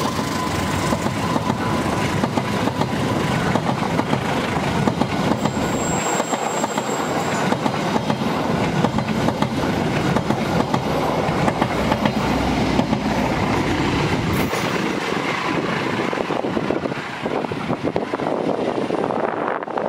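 Passenger train coaches rolling past close by, steel wheels clattering over the rail joints in a steady rumble. The last of a horn blast dies away in the first second or so, and a brief high squeal rings out about six seconds in.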